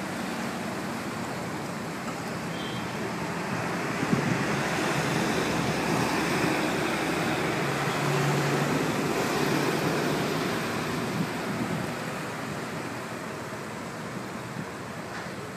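A steady rushing noise with no clear pitch, swelling for several seconds in the middle.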